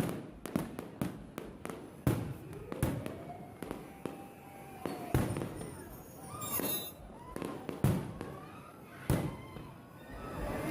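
A fireworks display with bangs of shells going off at irregular intervals, several of them loud, and a brief high crackle about two-thirds of the way through.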